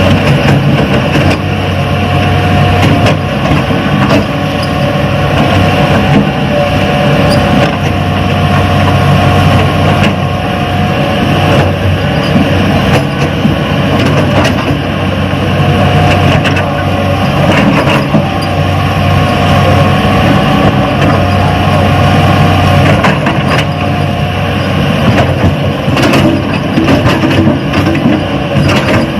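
Radio-controlled model Hitachi excavator working: a steady engine-like drone with a higher whine that comes and goes in stretches of a few seconds as it moves.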